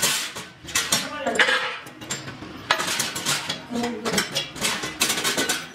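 Irregular clanks and clinks of steel pipe and frame pieces knocking together as a grass cutter's steel frame and pipe roller are handled and fitted by hand, some strikes ringing briefly.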